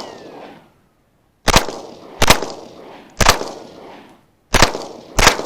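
Five single gunshots at an uneven pace, each followed by a short echo tail.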